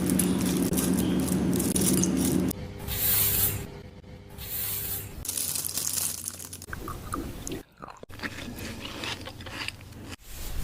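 Close crunching and scraping sounds of fingers scratching through hair and over the scalp during a hair wash, with a low steady hum for the first couple of seconds.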